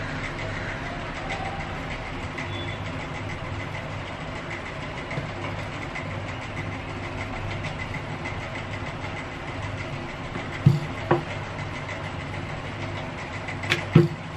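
Puri dough being rolled out with a wooden rolling pin on a round stone rolling board (chakla): a steady low rumble, with two pairs of sharp knocks of the pin against the board, one pair about three-quarters of the way in and one near the end.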